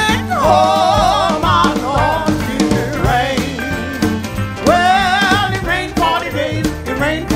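Gospel-blues song recording: a woman sings long, wavering notes over a steady band backing.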